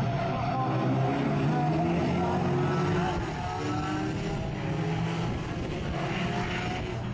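Engines of several banger racing cars running hard together as the pack races, their overlapping tones rising and falling with the revs, loudest in the first three seconds.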